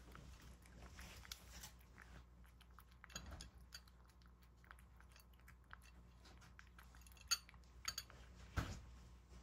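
A cat chewing and crunching wet food mixed with dry kibble from a ceramic bowl, with small wet clicks throughout. Near the end the metal spoon in the bowl clinks sharply against it a few times, followed by a soft thump.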